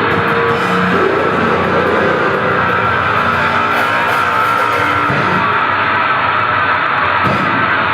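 Grindcore music: a loud, dense wall of heavily distorted electric guitar with held notes, played at a steady level.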